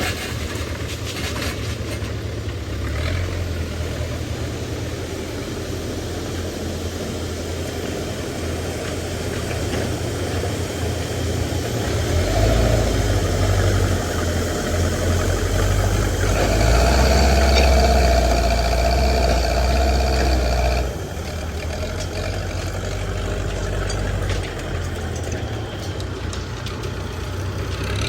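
Backhoe loader's diesel engine running steadily, working harder and louder with a steady whine added from about halfway through, then dropping back near three quarters of the way.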